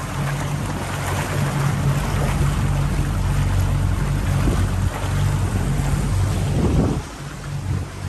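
50 hp Yamaha outboard motor running steadily at low speed, a low hum under the wash of the boat's wake and wind on the microphone. The sound dips briefly near the end, then the motor comes back.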